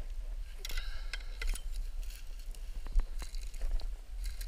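Handling sounds as a landing net is picked up off a grassy bank and swung out: rustling and scraping, with several sharp knocks, the loudest about three seconds in, over a steady low rumble.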